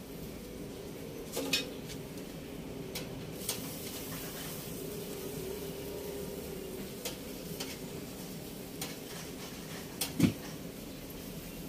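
Metal tongs clinking against a charcoal grill's wire grate as hotdogs are turned, a few sharp clicks with the loudest pair about ten seconds in, over a faint steady hiss from the grill.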